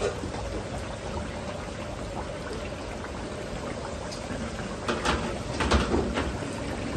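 Starch-and-egg-coated chicken thigh pieces deep-frying in a large wok of hot oil: a steady bubbling sizzle. Louder spattering crackles come around five to six seconds in, as the pieces are stirred.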